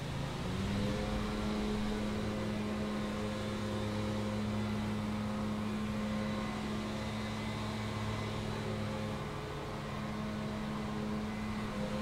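Lawn mower engine running steadily, its pitch stepping up slightly about half a second in and dipping briefly near ten seconds.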